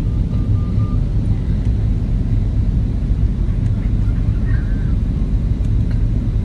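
Airliner cabin noise heard from a window seat: a steady low drone of engines and airflow.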